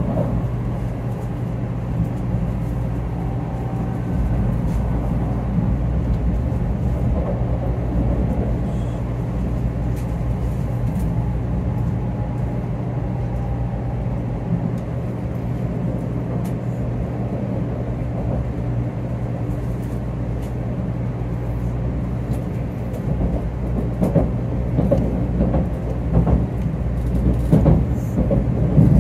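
Cabin noise inside a moving 500 Series Shinkansen: a steady low rumble with a constant low hum, and a run of louder irregular knocks in the last few seconds.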